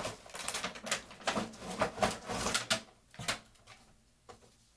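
Cardboard box and its plastic packaging being handled and pulled apart: a quick run of crackles and clicks that thins out after about three seconds to a couple of single knocks.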